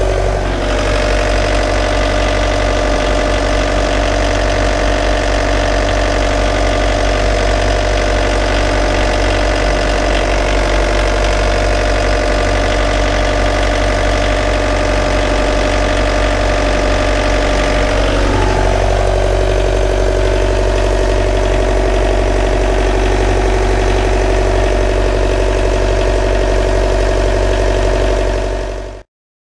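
Volvo Penta TMD22 four-cylinder turbocharged marine diesel idling steadily, with a brief wobble in its note about two-thirds of the way through.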